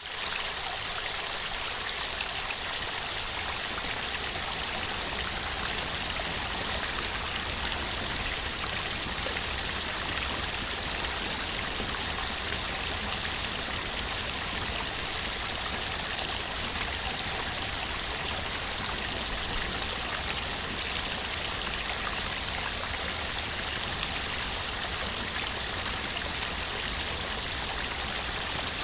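Waterfall and stream water running in a steady, unbroken rush.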